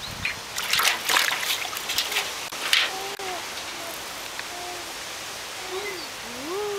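Water splashing and sloshing in a metal washtub as pet mink paddle and clamber out, with several sharp splashes in the first three seconds. After that it is quieter, with a few brief soft vocal sounds and one rising-then-falling call near the end.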